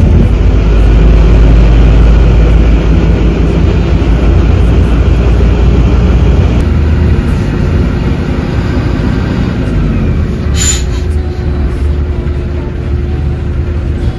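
Inside a moving city bus: a steady deep rumble of the engine and tyres as it drives. A short high-pitched sound comes a little over two-thirds of the way through.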